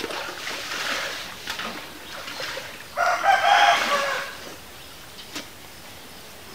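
A loud pitched animal call, held about a second, some three seconds in, over softer background noise.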